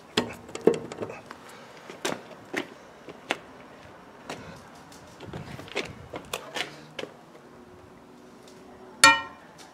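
Metal tools clicking and clinking as an Allen bit, socket reducers and a breaker bar are fitted onto a driveshaft bolt in the wheel hub. About nine seconds in comes one loud, ringing metallic clang.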